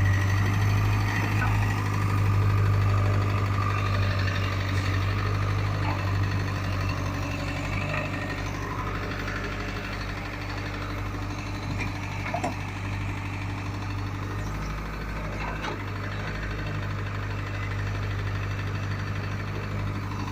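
Heavy diesel engine, a JCB backhoe loader's, idling steadily on the building site with a constant low hum, a little louder in the first several seconds.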